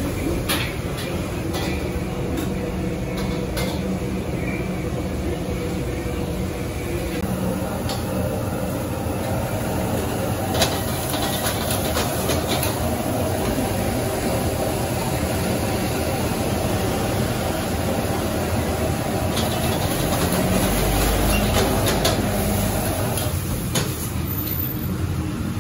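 Egg fried rice being stir-fried in a wok over a high-output gas wok burner: the burner's steady roar, with a metal ladle clanking and scraping against the wok now and then.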